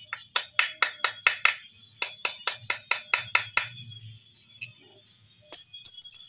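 A hammer striking a long bolt used as a drift to seat a new steering-head bearing race in a Yamaha NMAX's frame head tube: two quick runs of sharp metallic taps, about five a second, then a few light ringing clinks near the end.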